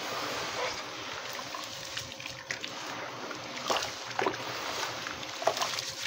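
Hands squeezing and crumbling gritty wet cement under water in a plastic tub: continuous sloshing and swishing with small crunchy crackles. There are a few sharper, louder crunches and splashes in the second half.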